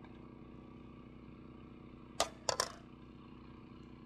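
A serving utensil knocking three times in quick succession against the cauldron of campfire plov as it is dug into, over a steady low hum.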